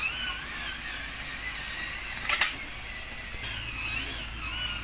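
Small electric motors of radio-controlled construction models whining, their pitch wavering as they work, with one sharp click about two and a half seconds in.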